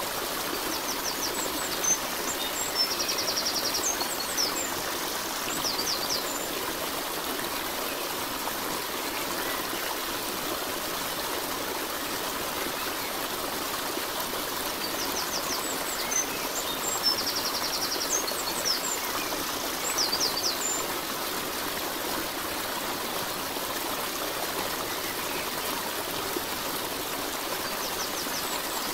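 Steady rushing and trickling of a flowing stream, with short high bird chirps that come back in the same pattern about every 15 seconds, as in a looped nature-sound track.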